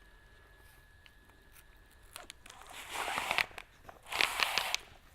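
Stiff sail cloth crinkling and rustling, with small clicks, as a batten is pushed into its pocket in a racing jib. It comes in two bursts, starting about two and a half seconds in.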